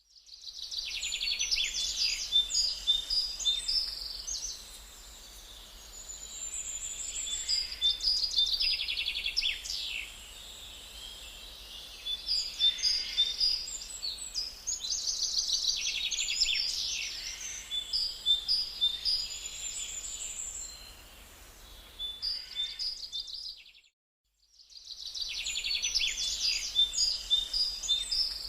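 Gouldian finch singing: bursts of high, rapid twittering and chirping phrases a few seconds long, repeated with short pauses between them.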